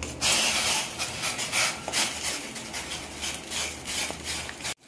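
Slotted steel spoon stirring and scraping in a stainless steel pot of hot water while semolina is poured in. A burst of hiss starts about a quarter second in, then a run of short scrapes follows.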